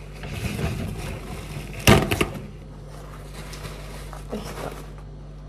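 Objects being handled and set down: a short rustle, then a quick clatter of a few sharp knocks about two seconds in, over a steady low electrical hum.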